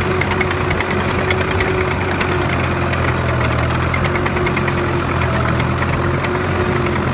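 Roadless J17 crawler tractor's engine running steadily as the tractor drives slowly on its tracks, a low even drone with light ticking over it.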